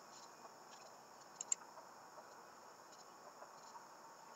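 Faint outdoor ambience: a steady high chirring of insects such as crickets, with two sharp clicks in quick succession about a second and a half in.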